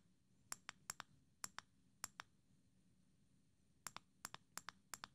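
Rubber-covered record start/stop button on a SmallRig NATO top handle being pressed over and over, giving sharp clicks in quick pairs. There is a pause of about a second and a half midway, then more presses. The click is loud enough for a camera-mounted microphone to pick up.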